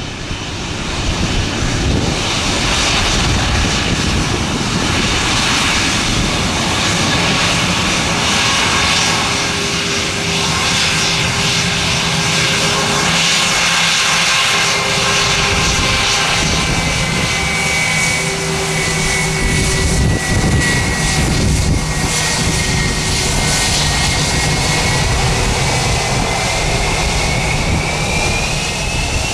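Airliner's engines running loud and steady as the aircraft passes, a rushing roar with a whine that slowly falls and then rises again near the end.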